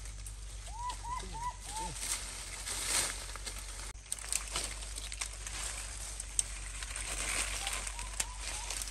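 A baby monkey gives four short squeaking calls in quick succession, each rising and falling in pitch, in the first two seconds. After that comes rustling with scattered sharp clicks and crackles.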